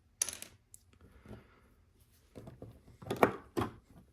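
Plastic LEGO pieces clattering and clicking as they are handled and picked from a pile: a short rattle near the start, scattered clicks, and the loudest pair of clacks about three seconds in.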